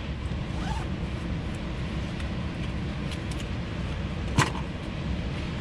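Steady low rumble of gusty wind buffeting the microphone over the wash of ocean surf, with one sharp click about four seconds in.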